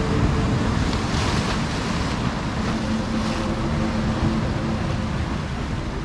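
Ocean surf washing in over a rocky shore: a steady rush of breaking water, swelling into a brighter hiss of spray about a second in that eases off after three seconds. Faint held tones sound underneath.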